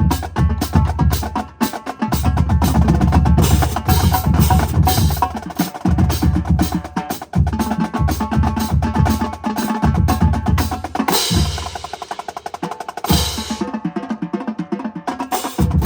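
Marching band drumline playing a fast cadence: rapid snare strokes over heavy bass drum hits. About eleven seconds in there is a sustained roll, followed by a short stretch without the bass drums before the full line comes back in.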